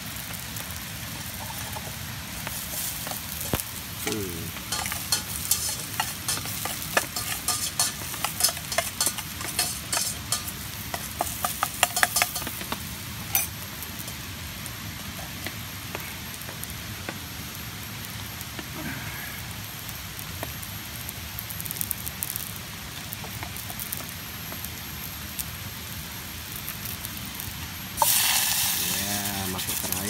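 Chicken stir-frying in a pan with a steady sizzle. A spatula scrapes and clinks against the pan for about ten seconds, starting a few seconds in. A sudden louder hiss sets in near the end.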